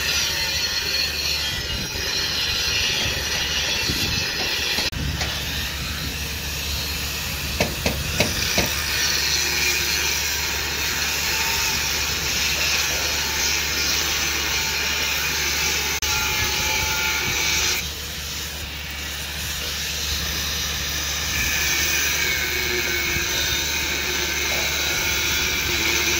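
Handheld angle grinder with a cut-off disc cutting through steel checker plate: a steady, high-pitched grinding noise. It eases off about two-thirds of the way through, then bears down again, with a few sharp clicks about a third of the way in.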